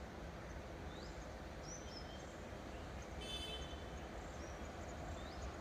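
Faint outdoor background noise with a steady low rumble and a few short bird chirps, and a brief buzzy call about three seconds in.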